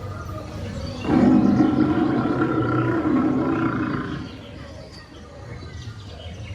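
A recorded animal roar from an animatronic robot animal, played through its loudspeaker: one loud, deep roar starting about a second in and lasting about three seconds, then fading back to the crowd background.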